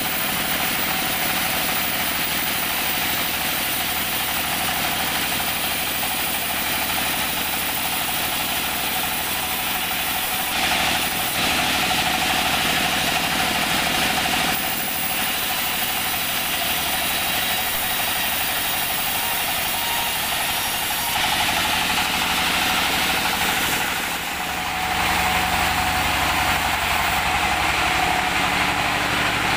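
Band sawmill running as a teak plank is ripped through the blade: a continuous loud machine noise with a steady whine. About three-quarters of the way through, the sound shifts and a deeper hum comes in.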